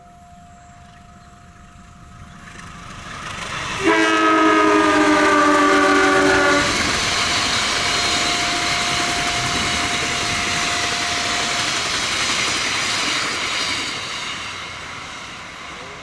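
Train approaching at speed and sounding its multi-tone horn in one blast of nearly three seconds, starting about four seconds in, the pitch sagging slightly as it nears. The rushing noise of the train running past follows and fades toward the end.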